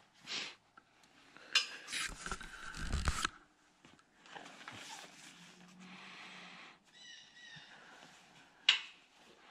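Rustling, knocking and metallic clinks from a hunter climbing down a metal tree stand. A loud stretch of close handling noise with low thumps comes a couple of seconds in, and a single sharp clank comes near the end.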